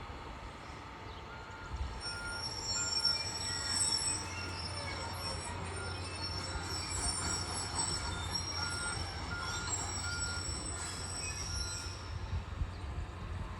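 Heavy track-work machinery running: a low diesel engine rumble under a high, steady metallic squeal, with a short beep repeating on and off, like a backup alarm.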